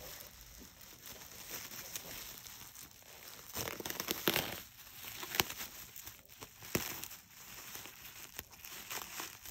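Plastic bubble wrap crinkling and rustling as it is handled and cut open with scissors, with a few sharp crackles in the middle.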